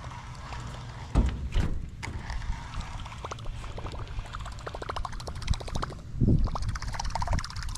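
Water sloshing and gurgling around a small boat, over a steady low wind rumble on the microphone. There are two sharp knocks about a second in, then runs of rapid, even ticking from about three seconds on.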